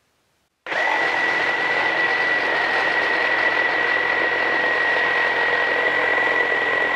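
Milwaukee M18 brushless Super Sawzall reciprocating saw cutting through a 4x6 wooden post with the orbital action off. The saw's running noise comes in abruptly under a second in and holds steady, with a high, even whine over the rasp of the blade in the wood.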